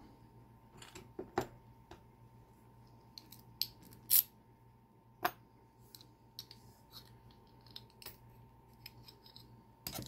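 Scattered light metallic clicks and clinks from a Mul-T-Lock Interactive C series padlock being taken apart by hand, its shackle pulled free and the steel lock body handled. The sharpest clicks come about a second and a half in and about four seconds in.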